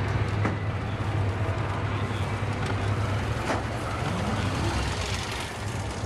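Steady low rumble of vehicle engines running, with one engine's pitch rising briefly about four seconds in.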